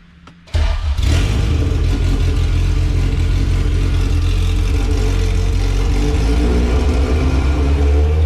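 Honda B18 LS/VTEC four-cylinder engine starting about half a second in and then running at a steady high idle, with its throttle-body idle screw set open too far.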